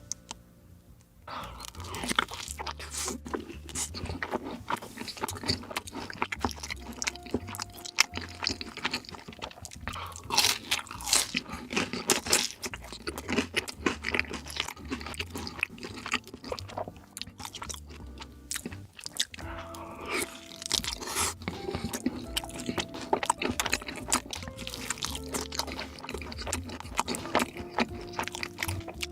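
Close-miked mukbang eating: repeated crunching bites and chewing, over background music.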